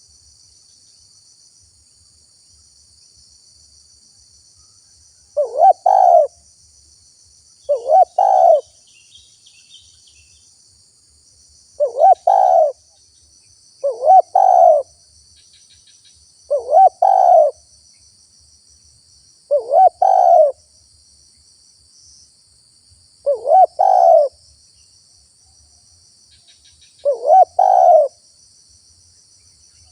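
A spotted dove (tekukur) calling: eight short cooing phrases, each a couple of quick notes run into a longer one, repeated every two to four seconds. A faint, steady high drone runs underneath.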